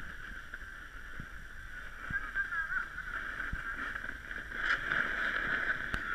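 Snowboard sliding over packed snow: a muffled rushing scrape with a low rumble and a few soft knocks, and a sharp click near the end.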